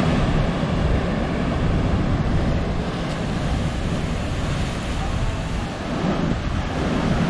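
Ocean surf breaking on rocks, a steady rushing wash, mixed with wind buffeting the microphone.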